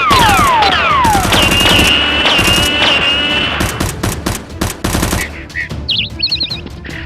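Rapid machine-gun fire sound effects, dense for about five seconds and then stopping, with falling whistles near the start, over background music.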